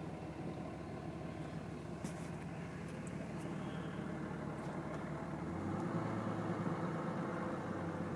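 Steady engine and road noise of a car driving along a highway, heard from inside the cabin, with a slight change in the low hum about five and a half seconds in.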